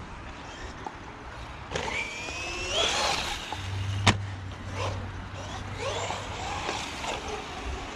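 Bezgar HM124 1/12-scale brushless RC car's motor whining, rising in pitch as the car accelerates about two seconds in, with a sharp knock a little after four seconds and further short whines as it is driven about.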